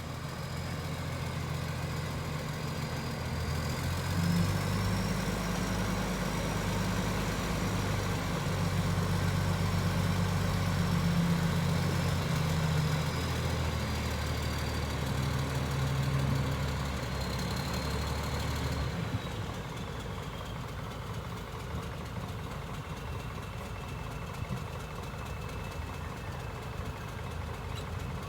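Heavy diesel engine of earthmoving machinery running steadily, with a thin high whine over it that slowly drifts in pitch; about two-thirds of the way through the deep engine note drops away and the sound becomes quieter.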